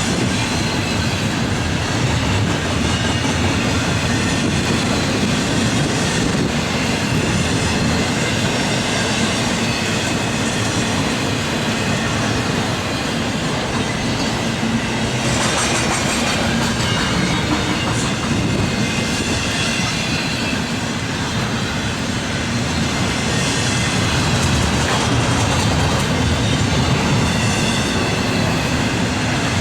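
Norfolk Southern double-stack intermodal freight train passing at speed: a steady, loud rumble of steel wheels on rail that runs unbroken throughout.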